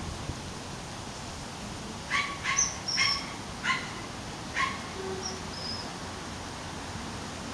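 Eurasian magpie giving five short harsh calls, spaced about half a second to a second apart, between about two and five seconds in.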